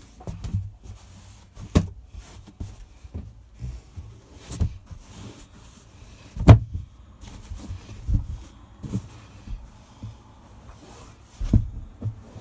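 Scattered knocks and thumps over a low rumble, the loudest about six and a half seconds in: someone moving about a sailboat's cabin, bumping and handling the woodwork and fittings.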